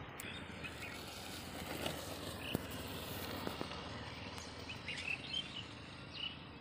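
Outdoor rural ambience: a steady background hiss with scattered short bird chirps and a few faint clicks.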